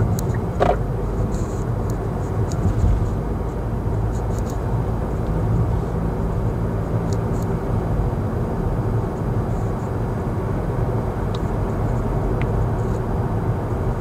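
Steady road and engine noise of a Kia Seltos cruising along a straight road, heard from inside the car.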